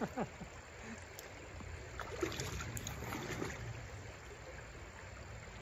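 Shallow trout stream running steadily, with a few brief splashes and rustles about two to three seconds in.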